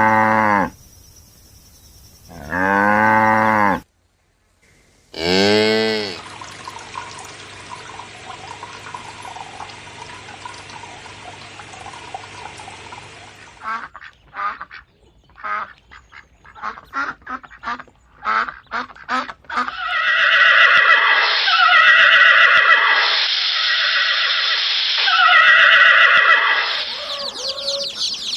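A sequence of animal calls: three long, low moos from cattle in the first six seconds, then a run of short sharp sounds, then repeated loud honking calls like those of geese from about twenty seconds in.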